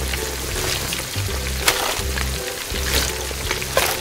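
Hot oil sizzling and crackling as battered chicken pieces deep-fry in a miniature wok, with a couple of sharp clicks, over background music.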